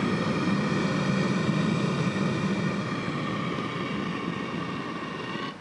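Propane burner on a homemade drum melting furnace running with a steady roar and faint whistling tones, fading slowly as the propane is shut off and cutting out near the end.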